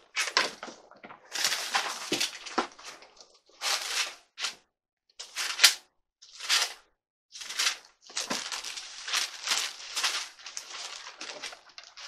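Thin Bible pages being leafed through: a run of quick, crisp page-turning rustles with short gaps between, running together into steady rustling for the last few seconds as the pages are searched.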